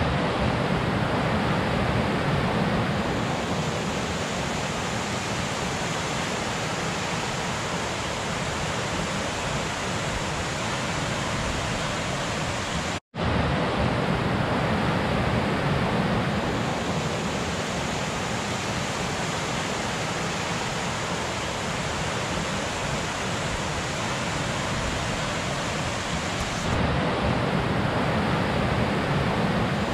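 Creek rapids rushing over rocks, a steady roar of water that breaks off for an instant about 13 seconds in and resumes.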